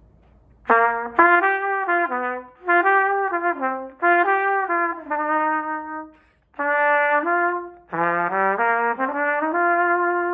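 1957 Olds Special trumpet played solo: a phrase of separate notes begins under a second in, breaks for a short breath a little past the middle, then resumes with a quicker run of notes.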